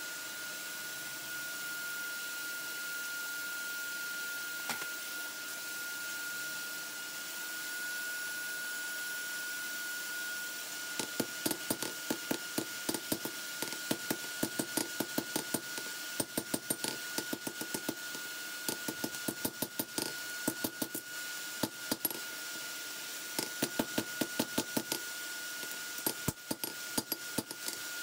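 Ball-peen hammer striking a lawnmower-blade knife blank on a steel anvil, in runs of quick blows about three or four a second with short pauses between them, starting about eleven seconds in. A steady high-pitched whine runs underneath throughout.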